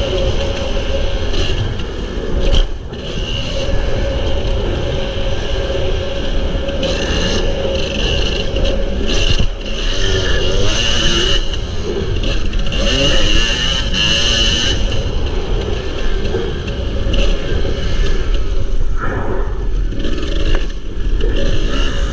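Kawasaki KDX250 two-stroke dirt bike engine running and revving up and down while being ridden over dirt, with heavy wind buffeting on the camera microphone.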